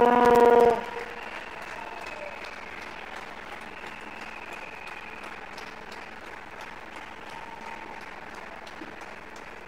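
A loud buzzing horn tone that cuts off under a second in, then spectators applauding steadily.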